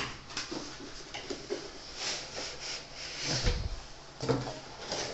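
Cardboard boxes being handled: flaps and box edges scuffing and knocking, with a sharp knock at the start and a dull thump about three and a half seconds in.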